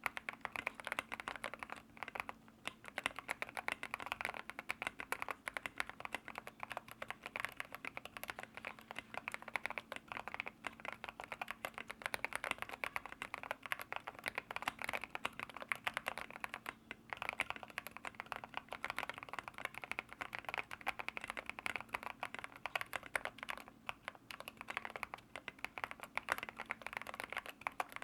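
Continuous fast typing on a mechanical keyboard fitted with linear switches: a dense run of keystrokes that starts abruptly, with a brief lull about two seconds in and another partway through.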